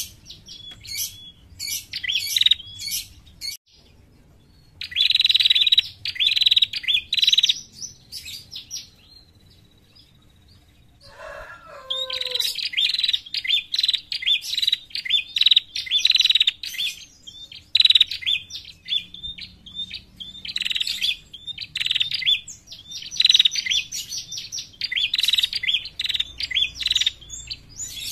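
Female prenjak calling: runs of rapid, sharp, high chirps in repeated bursts, with a short pause about 4 s in and a longer one from about 8 to 12 s. A brief series of lower, falling notes is heard around 11 s.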